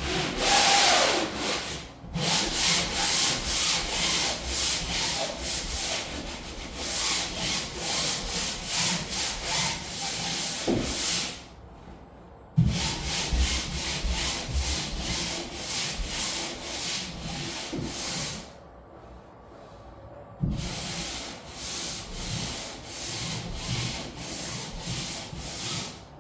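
Sandpaper rubbed by hand over primed, painted plywood in quick back-and-forth strokes, about two or three a second. The light scuff-sanding between coats stops briefly twice and resumes.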